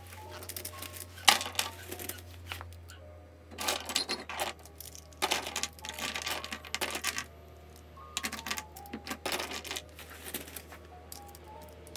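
Plastic Pilot FriXion highlighters and Juice gel pens clicking and clattering against one another as they are gathered by hand and set down, in several bursts. Soft background music plays underneath.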